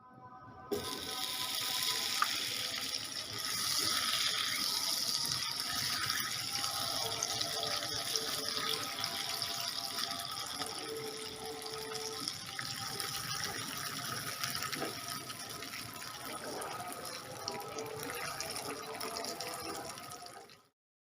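A steady, watery rushing hiss that starts suddenly and cuts off abruptly near the end.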